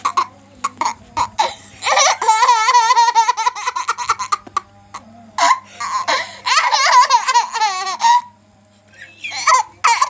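A young child laughing hard in high-pitched fits: short bursts of laughter, then two long, rapid runs of laughing, each a couple of seconds long, then short bursts again near the end.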